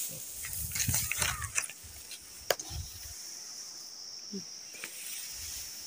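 Dry brush and twigs crackling, with scattered sharp snaps and one louder snap about two and a half seconds in, over a steady high buzz of insects.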